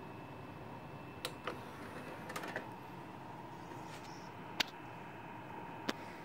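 Disc player taking in a DVD: a few sharp clicks and a short clatter of small plastic clicks as the tray is closed and latches, then two more single clicks a few seconds apart. A faint steady high whine and hiss run underneath.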